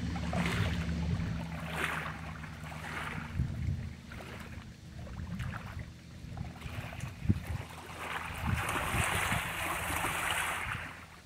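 Wind buffeting the microphone over choppy open water, with a low steady engine hum that is clearest for the first four seconds or so. A strong gust comes in near the end.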